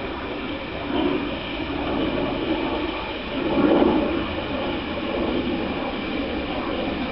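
Large-scale model train running on the backyard track, a steady rushing noise that swells about a second in and again near four seconds in.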